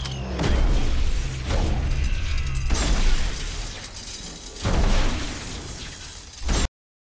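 Movie action sound effects: airburst rifle rounds exploding, with blasts and shattering, clattering metal debris, several loud hits in a row. It cuts off suddenly near the end.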